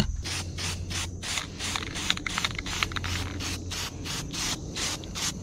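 Aerosol can of Rust-Oleum rust converter spraying in a rapid run of short hissing bursts, about four a second.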